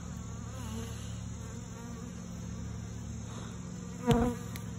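Honey bees from an open hive buzzing steadily, a many-bee drone with wavering pitches, and one short louder burst about four seconds in.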